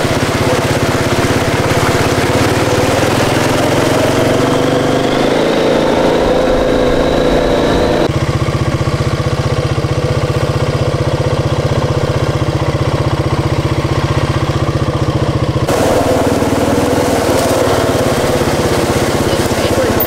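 Four-wheeler (ATV) engine running under way, its pitch rising between about four and eight seconds in. The sound changes abruptly about eight seconds in and again near sixteen seconds.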